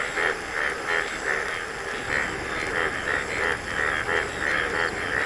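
A chorus of frogs calling in the rain, croaking over and over at about two calls a second.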